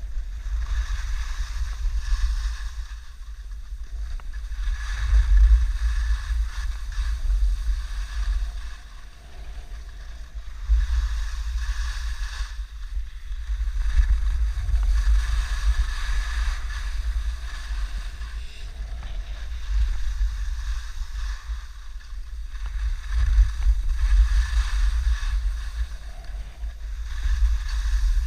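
Wind buffeting the microphone: a heavy low rumble with a rushing hiss that swells and fades in gusts every few seconds.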